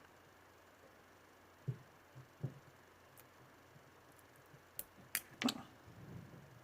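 Faint, scattered clicks and taps of small hand tools working on a micro-USB cable plug, a few near the middle and a quick cluster toward the end.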